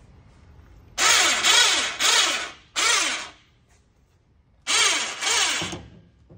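Electric winch on an engine hoist's boom run in three short bursts, its motor whine wavering up and down in pitch and stopping abruptly each time, jogging the cable to set the load.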